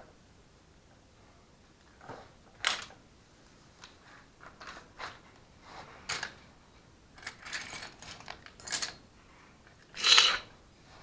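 Metal hand tools and engine parts clinking and clattering at irregular intervals, with a louder, longer clank about ten seconds in.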